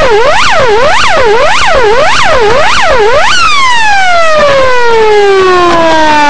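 Electronic siren on fast yelp, sweeping up and down about twice a second, switching about three seconds in to a slow wail that falls in one long glide.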